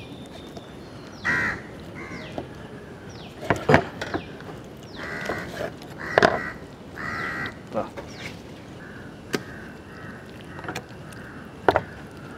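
Crows cawing several times, with a few sharp knocks of a knife against a wooden cutting board as raw chicken is cut off the bone.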